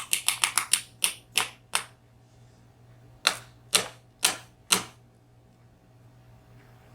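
Sharp metal clicks and taps as a VSR dimple lock is worked to free its last centre-row driver pin. There is a quick run of about nine clicks in the first two seconds, then four louder taps about half a second apart.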